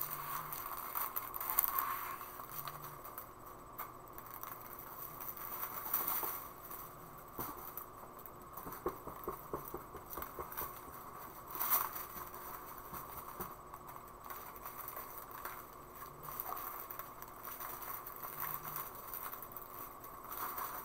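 Small plastic bags of diamond painting drills crinkling and rustling off and on as they are handled, with a couple of louder crinkles about six and twelve seconds in.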